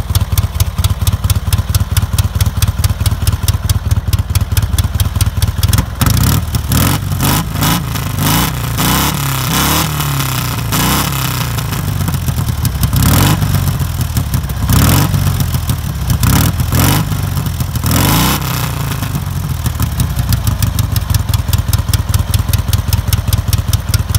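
1969 Ural sidecar motorcycle's flat-twin four-stroke engine idling with an even, rapid beat. About six seconds in it is revved repeatedly, its pitch rising and falling with the sharpest blips mid-way. Near the end it settles back to a steady idle.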